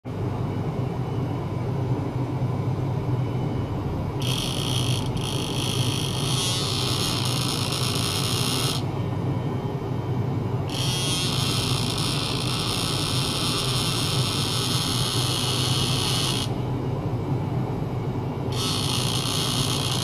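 Electric toothbrush buzzing in three spells of a few seconds each, with short pauses between. A steady low hum runs underneath.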